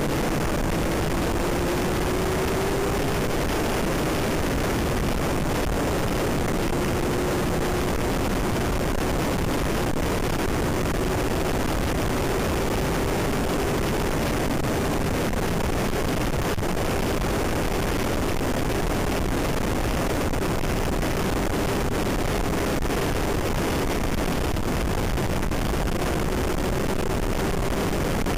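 Steady rush of wind over a motorcycle-mounted camera at road speed, with the motorcycle engine's hum faint underneath, its pitch slowly rising and falling.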